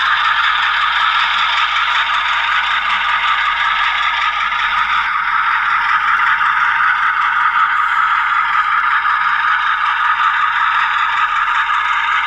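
Sound decoder in an Atlas HO-scale GE U30C model diesel locomotive, playing a steady GE diesel engine rumble through the model's small onboard speaker as it runs along the track.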